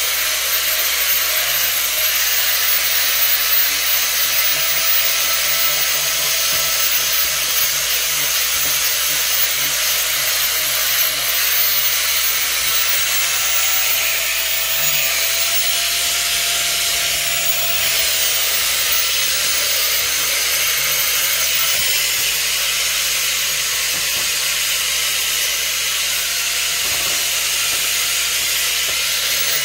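A steady, even hiss, with faint wavering tones underneath.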